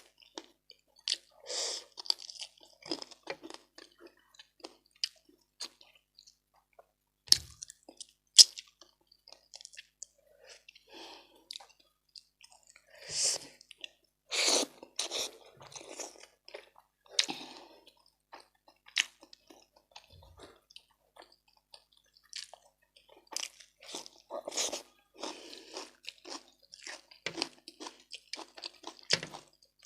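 Close-miked chewing and crunching of a person eating, irregular wet mouth clicks with louder crunches every few seconds.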